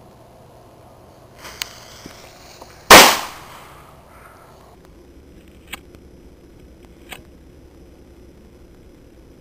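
A single loud, sharp blast from a homemade firecracker-type explosive going off about three seconds in, with a short dying tail. It is preceded by a brief faint hiss and click, and followed by two faint clicks.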